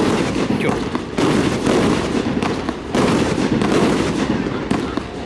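Castillo fireworks display: a dense, unbroken barrage of bangs and crackles from shells and firecrackers, with fresh volleys surging in about a second, three seconds and five seconds in.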